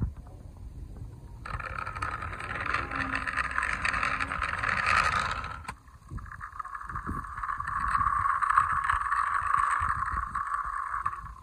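Small wheels of die-cast toy cars rolling along rough concrete, a steady grinding rasp. The first push starts about a second and a half in and stops near the middle, and a second push runs on from just after it.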